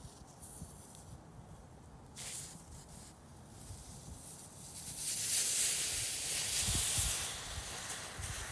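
Hot cast copper ingot sizzling in snow as it melts its way down: a hiss that swells about halfway through and stays loud near the end.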